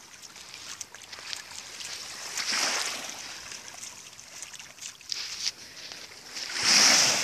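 Shallow water at the shoreline: small waves washing in, swelling twice (about two and a half seconds in, and louder near the end), with light splashes and drips as a golden retriever wades and noses in the water.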